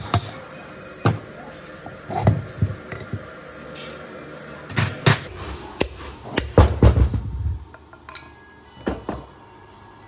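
A steel bar knocking inside a rusty three-phase electric motor's cast housing to drive out its end shield. The sharp metal knocks come at irregular intervals, with a cluster of heavier thuds about two-thirds of the way through.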